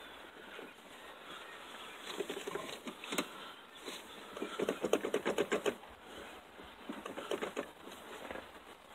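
Hand tools clicking and tapping on the clutch line's metal flare nut as it is backed off the clutch master cylinder, with a quick run of rapid clicks about halfway through.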